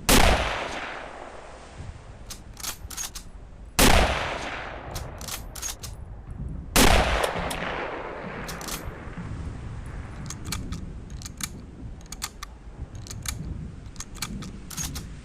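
Mosin-Nagant 1891/30 bolt-action rifle in 7.62×54mmR firing three shots, about three to four seconds apart, each followed by a long fading echo. Short sharp clicks and clacks fall between the shots and after the last one.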